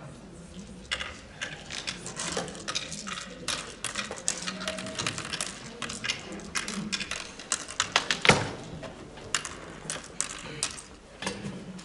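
Oware counters clicking into the pits of a wooden oware board as a player sows them, a rapid, irregular run of clicks with the loudest one about eight seconds in.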